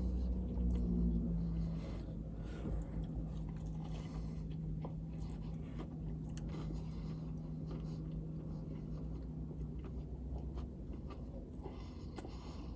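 A person chewing a bite of a crispy fried chicken sandwich: faint scattered crunches and mouth sounds over a steady low hum.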